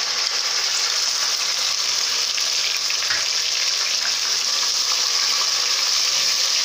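Yogurt sizzling in hot ghee with fried onions and whole spices in a steel pot: a steady hiss as it is stirred in with a ladle.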